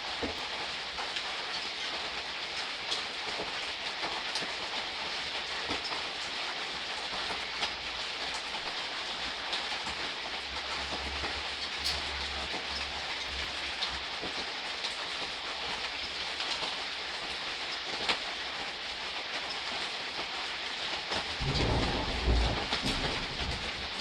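Steady gentle rain falling, with scattered louder drops ticking. A low rumble sounds in the middle, and a louder one comes near the end.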